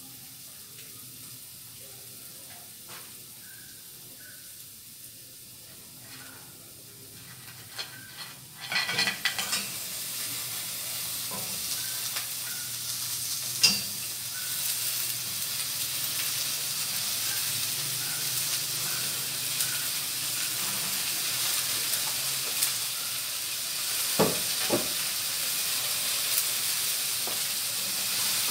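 Food sizzling as it fries in a stainless steel pan on a gas burner: the hiss starts suddenly about nine seconds in, as ingredients go into the hot pan, and keeps going steadily. A few sharp knocks of utensils against the pan, once near the middle and twice close together later on.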